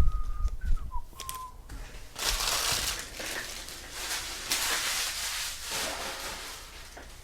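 A few short whistled notes, one dipping in pitch, then a rustling hiss of cards and packaging being handled that swells twice.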